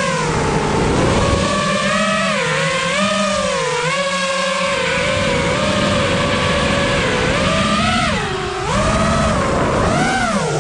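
FPV freestyle quadcopter's brushless motors whining, the pitch rising and falling with the throttle. Near the end the pitch drops sharply and then climbs back.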